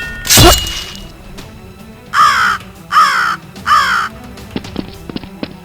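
A crow cawing three times in a row, each caw about half a second long, following a loud thud about half a second in.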